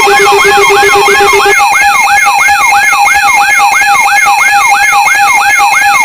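Electronic siren sound effect with a fast, repeating up-and-down wail, about three sweeps a second, layered with steady pulsing beep tones. A lower pulsing tone drops out about a second and a half in.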